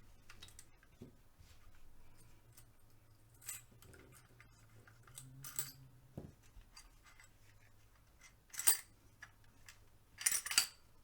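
Small metal clicks and scrapes from a Remington R1 1911 pistol's slide and slide stop being worked by hand while lining the slide stop up with its hole during reassembly. A few sharp clicks stand out, the loudest about nine seconds in and a quick cluster near the end.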